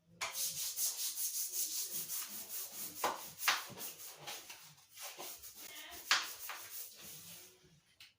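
Rapid back-and-forth scrubbing strokes on a hard bathroom surface, several a second, with a couple of harder strokes, stopping shortly before the end.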